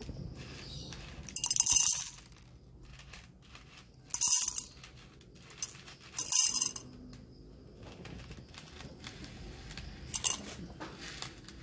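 Roasted whole coffee beans tipped from a scoop into a clear cup on a kitchen scale, rattling against the cup. There are three short pours, each under a second, about 1.5, 4 and 6 seconds in, and a smaller one near the end.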